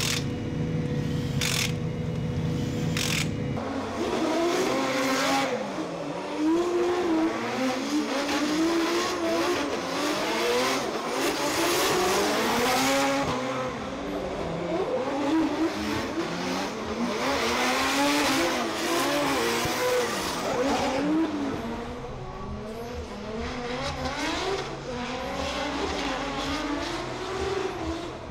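Drift car engine revving hard, its pitch swinging up and down, with tyre squeal, from about four seconds in. Before that, a steady low hum with two short bursts of a cordless impact wrench on a wheel nut.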